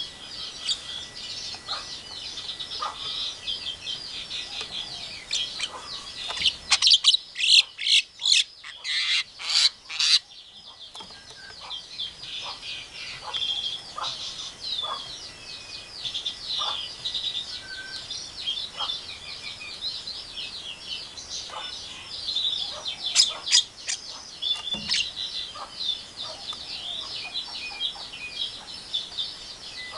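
Javan myna (jalak kebo) chattering without a break in quick, high chirps. A run of loud sharp calls comes from about 7 to 10 seconds in, and a few more loud calls come about 23 seconds in.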